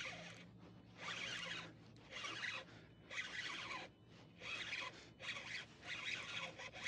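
Fishing reel buzzing in repeated short bursts, about one a second, under the pull of a large hooked red drum.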